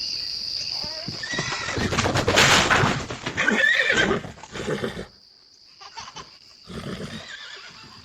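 Animal cries with rising and falling pitch, loudest about two to four seconds in, then dropping to fainter calls, over a steady high-pitched whine.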